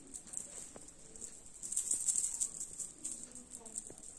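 Light rustling and small clicks from a pink fabric hair accessory being handled, growing busier about two seconds in.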